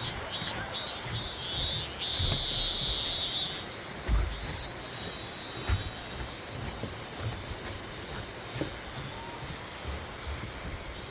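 Insects singing: a high, pulsing trill, about three pulses a second, that runs together into a continuous buzz about two seconds in, then fades away after about four seconds.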